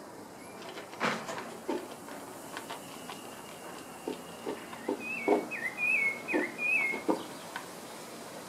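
A bird holds a thin high note, then gives a quick run of about five chirps, each dipping and rising in pitch, about five seconds in. Scattered soft knocks sound over a faint steady hiss.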